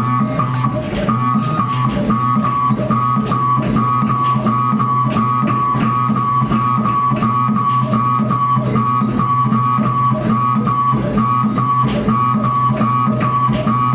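Background instrumental music with a steady, evenly repeating pattern.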